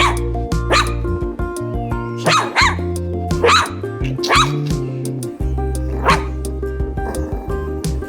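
Long-haired miniature dachshund puppy barking in short, sharp yaps, about one a second, over steady background music.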